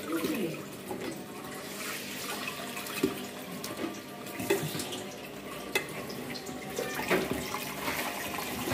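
Tap water running into a metal pressure-cooker pot holding pieces of cow's feet, filling it for cooking, with a few light knocks scattered through.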